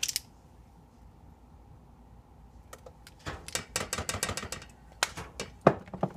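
Light clicking and clattering of a set of plastic measuring spoons on their ring as oil is measured into a saucepan: a quick cluster of clicks in the middle and a few single sharper clicks near the end, the last the loudest. A faint steady hum sits underneath.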